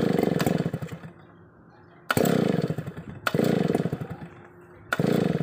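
New Stihl two-stroke chainsaw being pull-started: four pulls, each making the engine sputter for about a second before it dies, without catching.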